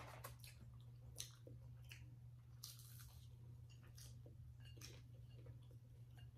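Faint chewing and mouth sounds of people eating sushi rolls, with scattered small clicks and soft smacks over a steady low hum.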